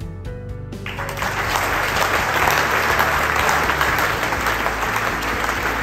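Audience applauding, a dense clapping that starts about a second in, with music playing underneath.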